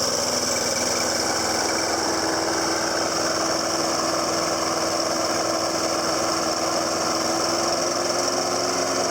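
Snapper walk-behind mower's 6.75 overhead-valve Briggs & Stratton engine running at a steady speed, with an even hum that holds level throughout.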